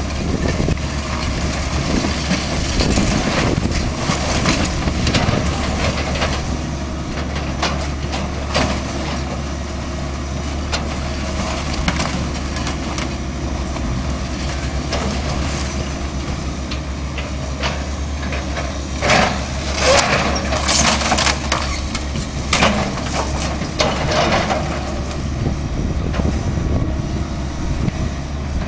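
Heavy demolition machine running steadily while the house's wood and debris crack and crunch as it is torn down, with the loudest run of crashes about two-thirds of the way through.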